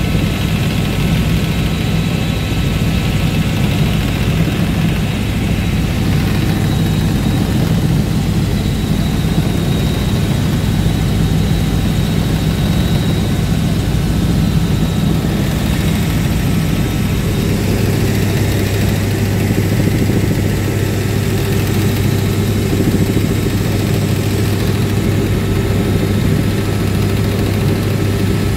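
Robinson R66 turbine helicopter in flight, heard from inside the cabin: a steady, unbroken drone of the rotor and turbine with a strong low hum.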